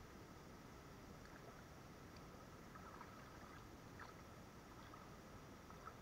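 Near silence: a faint steady hiss with a few faint ticks scattered through it.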